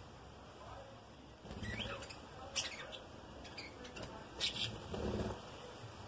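Budgerigars chirping: a few short chirps with quick pitch glides, and two sharp calls about two and a half and four and a half seconds in, with soft low rustling under some of them.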